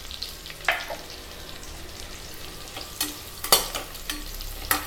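Chopped onions frying in hot oil in a stainless steel pressure cooker, with a steady sizzle. A metal spoon stirs them, scraping and clicking against the pot once near the start and several times in the second half.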